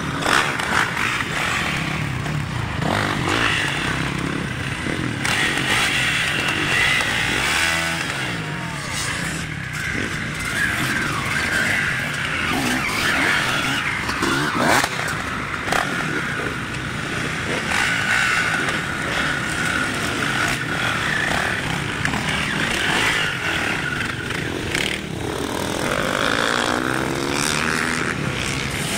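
Enduro dirt bike engines revving on the course, their pitch rising and falling as the riders open and close the throttle.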